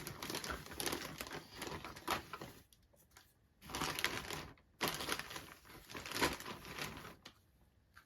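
Doll box packaging being handled and opened: plastic and cardboard crinkling and crackling in three bursts, with a short pause in between, stopping shortly before the end.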